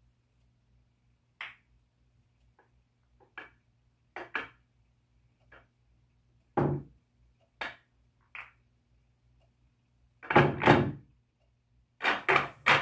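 Pool balls clacking together and the cue striking the cue ball in scattered sharp knocks, with a duller, deeper thud about six and a half seconds in; the loudest knocks come in quick clusters about ten and twelve seconds in.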